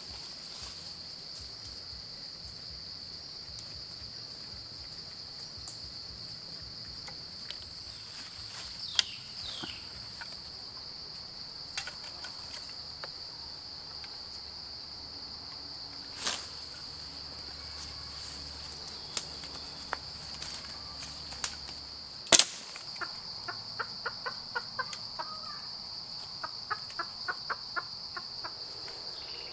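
Forest insects droning steadily at a high pitch, with scattered small clicks and one loud sharp snap about two-thirds through. After the snap comes a run of quick short clucks from the chicken.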